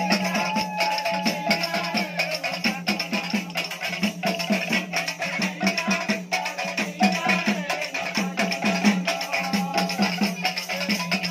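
Devotional kirtan music: a two-headed barrel drum (khol) beaten in a fast, steady rhythm with small hand cymbals jingling over it and a steady low drone underneath.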